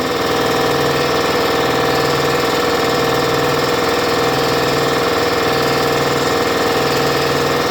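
Porter-Cable 30-gallon twin-piston air compressor running steadily under load, refilling its tank toward its roughly 150 psi cut-out pressure.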